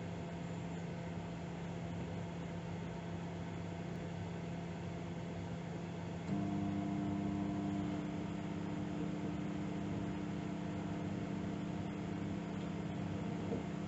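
Microwave oven running while heating a cup of water: a steady electrical hum. About six seconds in, the hum steps up, getting louder and slightly higher.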